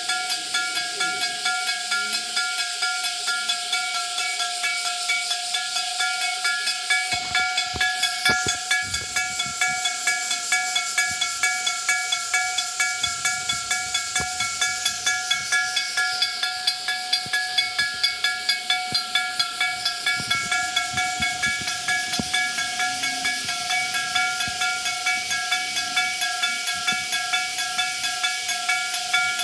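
A level crossing's electric warning bell ringing continuously, its clapper striking the gong many times a second. It gives a metallic ring on several steady pitches. This is the crossing's alarm that a train is approaching.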